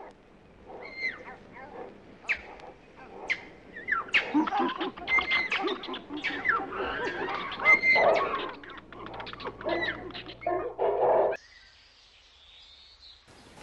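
A dense run of short, overlapping animal calls and chirps, growing busier and louder for several seconds. It stops abruptly about eleven seconds in, leaving a faint hiss.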